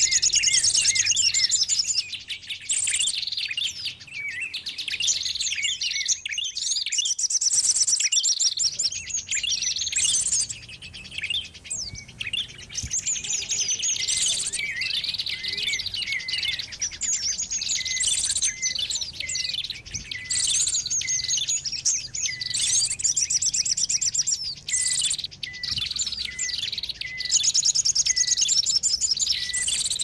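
A bird-lure recording of many small birds chirping and trilling at once in a noisy, busy chorus of high calls, with fast trills and short repeated chip notes.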